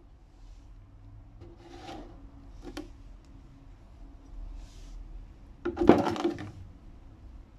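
Rusty steel end-cutting wire cutters dropped into a plastic tub of liquid, landing with a loud splash and knock near the end. Before that come a few light clicks and rubs as they are handled.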